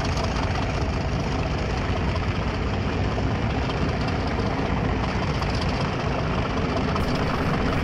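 OO gauge model diesel locomotive, a model of one of the LMS twins, running along the track hauling coaches, giving a steady, even mechanical running noise.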